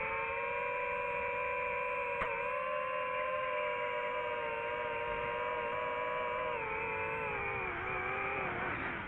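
A drone's motors and propellers whining at a steady pitch, with a slight wavering beat. The pitch dips lower near the end.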